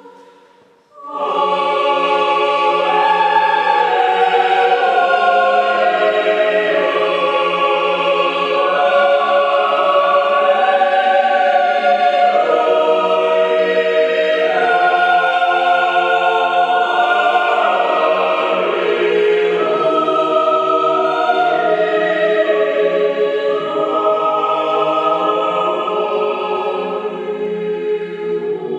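Mixed chamber choir singing in several parts. After a short silence the voices come in together about a second in and hold full chords that shift slowly.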